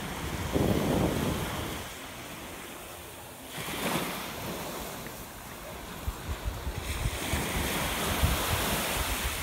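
Small waves washing up on a sandy beach, with gusts of wind buffeting the microphone, rough and rumbling in the second half.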